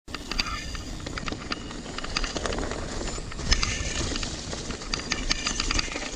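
Radon Slide Trail 10.0 full-suspension mountain bike riding fast down a leaf-covered dirt trail: tyres rolling over leaves and dirt with a low rumble, and the bike clicking and rattling irregularly over bumps.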